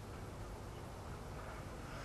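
Faint, steady low hum of a distant forage harvester cutting corn, under an even outdoor hiss.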